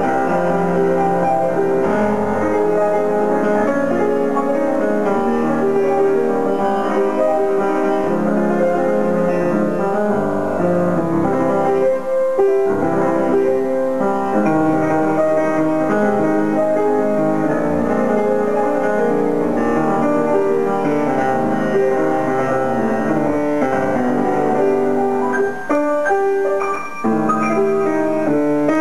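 Grand piano being played: a continuous run of notes and chords.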